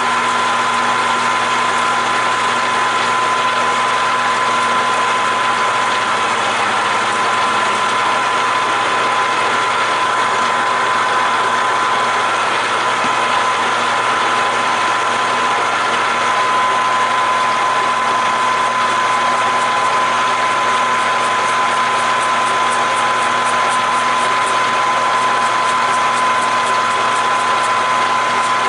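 Grizzly G4003G lathe running slowly while a knurling tool rolls a diamond knurl into a leaded brass rod under power feed: a steady mechanical drone with a constant high whine. A faint rapid ticking joins in during the last third.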